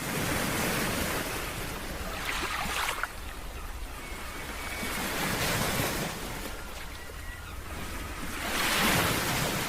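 Ocean surf: waves break and wash in as repeated swells of rushing noise, about four in all, the loudest near the end. A steady low rumble runs underneath.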